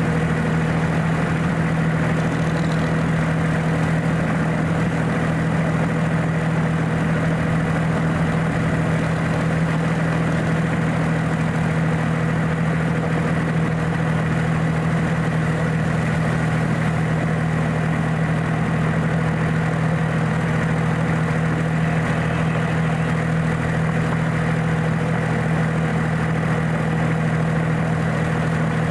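Engine of a ride-on miniature railway locomotive, a D2-class diesel-outline loco, running steadily while under way, heard from the driver's seat just behind the hood. Its pitch and loudness stay constant throughout.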